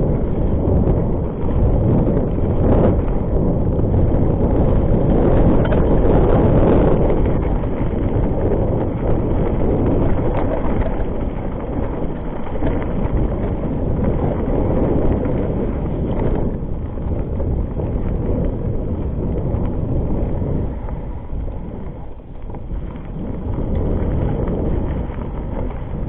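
Wind buffeting the microphone as a Rockrider ST 520 mountain bike rides fast down a dirt trail, with tyre rumble and the bike rattling over bumps.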